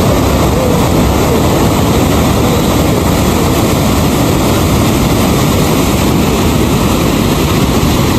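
A fast mountain river rushing in whitewater rapids over boulders: a loud, steady rush of water.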